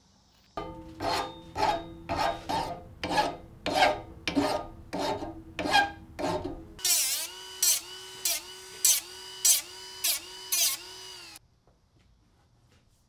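Hand file stroking across the cut end of a steel rod, about two strokes a second. Partway through, each stroke starts to ring with a squealing pitched tone. The filing stops suddenly near the end.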